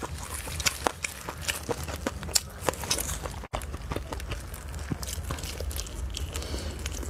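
Sticky crackles and small clicks of thin plastic food gloves handling and pulling apart a glazed roasted chicken wing, over a steady low hum.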